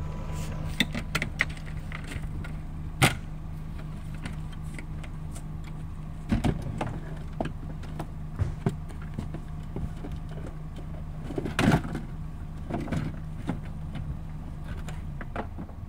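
Knocks and clatters as the removable cargo floor board of a Honda CR-V is lifted and moved in the cargo area, with the biggest knocks about three, six and twelve seconds in. Under them runs a steady low hum that stops shortly before the end.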